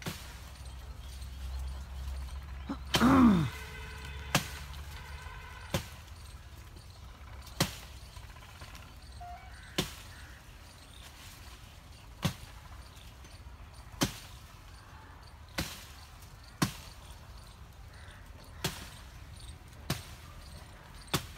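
Sharp chopping strokes of a blade on tree branches, one every one to two seconds. A brief loud call comes about three seconds in.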